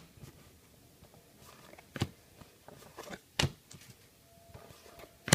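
Trading cards being handled and flipped through by hand: quiet rustling broken by a few sharp clicks and taps, the clearest about two seconds in, around three and a half seconds, and right at the end.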